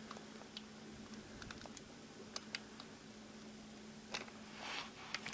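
Faint, scattered clicks of hard plastic toy pieces being handled, as a small Ranger figure is fitted onto a Megazord, over a low steady hum. A brief rustle comes near the end.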